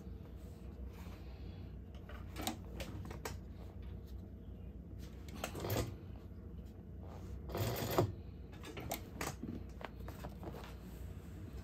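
Irregular rustling and scattered clicks and taps of a stiff canvas purse being handled and shifted into place at a sewing machine, with two louder rustles in the middle, over a low steady hum.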